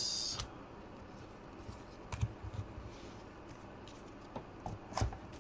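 Scattered light clicks and taps, with a few sharper ones about half a second, two seconds and five seconds in, over faint room hiss.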